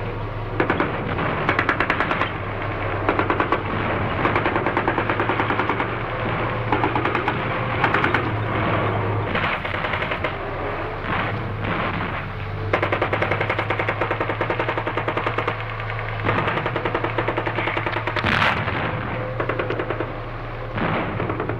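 Battle ambience: repeated bursts of rapid machine-gun fire mixed with single rifle shots, over a steady low hum. One especially sharp, loud crack comes near the end.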